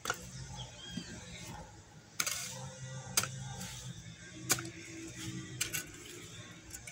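Weeds being torn and dug out of garden soil by hand: a handful of irregular sharp knocks and snaps, with one brief rustling scrape a couple of seconds in, over a low steady hum.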